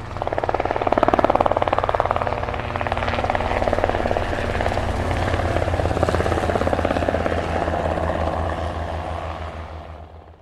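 Helicopter rotor beating in a rapid, steady chop, swelling up over the first second and fading away near the end.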